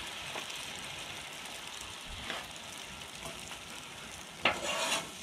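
Beaten eggs and chopped steak sizzling on a Blackstone flat-top griddle, with a spatula scraping across the griddle top a few times, the loudest scrape near the end.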